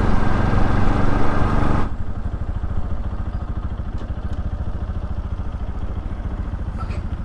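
Motorcycle riding with heavy wind and road rush. About two seconds in, the rush drops away suddenly, leaving the engine running at idle with a steady low pulsing.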